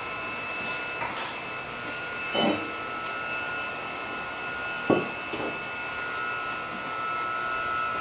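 Steady machine hum of a workshop with a faint high whine, broken by a few brief knocks about two and a half and five seconds in.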